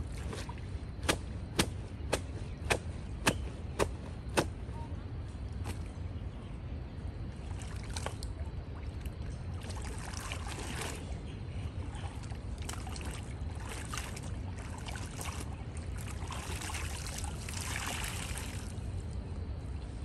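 A wet sarong being hand-washed in a river: about seven sharp slaps, roughly two a second, then bouts of splashing and sloshing water as it is rinsed, over a steady low rumble.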